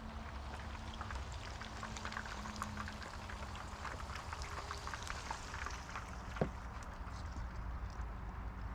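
Food cooking in a hot pan, crackling with many small pops over a low steady rumble.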